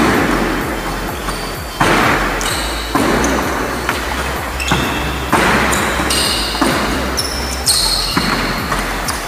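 Badminton racket strikes on a shuttlecock, about one a second, and short high sneaker squeaks and footfalls on a wooden court as a player lunges through a fast drill, all echoing in a large hall.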